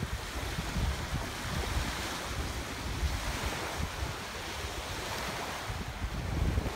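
Small waves lapping and breaking on a sandy shore, with wind buffeting the phone's microphone in uneven low gusts.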